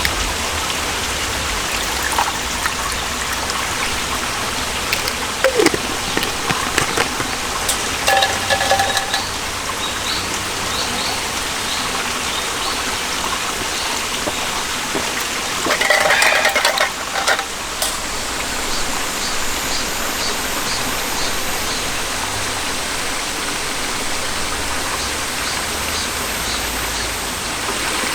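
A valley stream running steadily over rocks, a constant rush of water. A few short, higher calls sound over it, about a third of the way in and again just past the middle.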